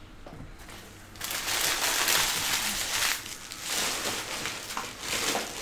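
Crinkling, rustling handling noise from trading cards and their packaging, in three bursts, the first and loudest about two seconds long.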